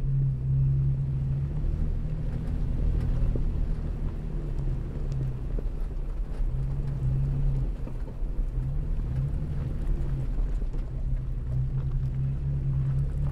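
Off-road vehicle driving slowly on a dirt trail: a steady low engine drone with a rumble beneath it. The drone eases and comes back a few times, and faint small clicks and knocks are scattered through it.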